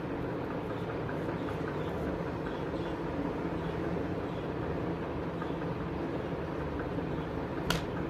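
Steady low mechanical rumble with a faint hum, and a single sharp click near the end.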